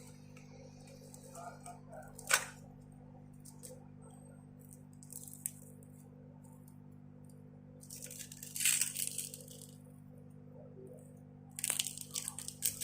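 Small phone parts and hand tools being handled during a smartphone teardown: a sharp click about two seconds in, a short scraping rustle later, and a quick run of small clicks near the end, over a steady low hum.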